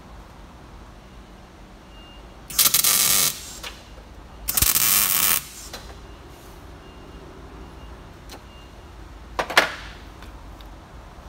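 Electric arc welder tacking steel plate into a square-tube bed mount: two crackling bursts of arc, each under a second and about two seconds apart, then a brief third burst near the end.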